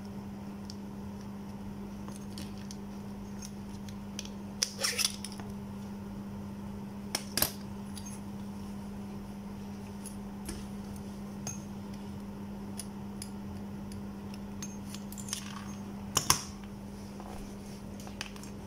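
Parts of a handheld rechargeable searchlight torch being handled and screwed on a workbench: a few sharp plastic and metal clicks, a short cluster about five seconds in, another around seven seconds, and the loudest near the end. A steady low hum runs underneath.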